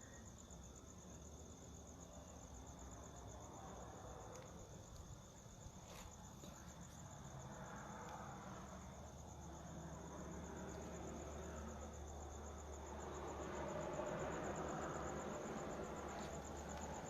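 Crickets trilling steadily at night, a fast even pulsing high-pitched chirr. A single sharp click about six seconds in, and a broader background noise swells near the end.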